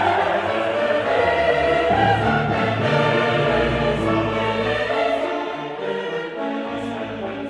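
Slow classical choral music: a choir singing long held notes with orchestral accompaniment.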